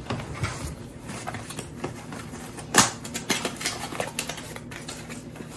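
Light clicks, taps and rustles of vacuum-cleaner parts and their packaging being handled, with one louder sharp click about three seconds in.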